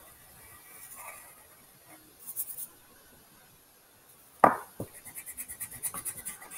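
Pencil scratching across paper in quick strokes while drawing circles: a short burst about two seconds in, then steady rapid strokes from about five seconds in. A sharp knock, the loudest sound, comes about four and a half seconds in, with a smaller one just after.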